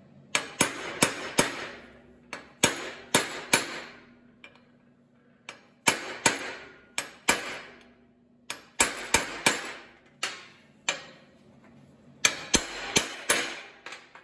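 Ball-peen hammer striking a steel 26 mm socket that drives a new sealed bearing into a mini bike torque converter plate by its outer race. Sharp metallic taps come in bursts of three to five, each ringing briefly, with pauses between the bursts.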